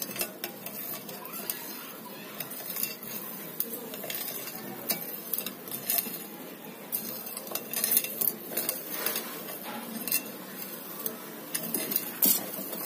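Metal spoon stirring milk in a glass bowl, clinking against the side of the bowl at irregular moments.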